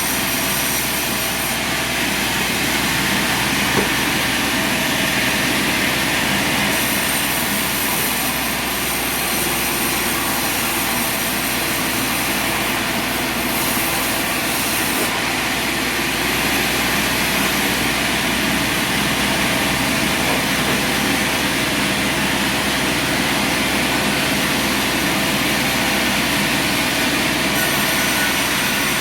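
Sawmill running steadily: a constant machine drone with several steady tones and no pauses or changes in pitch.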